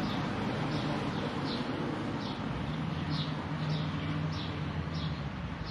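A short, high, falling chirp, like a small bird calling, repeated about every two-thirds of a second over a steady background hiss with a faint low hum.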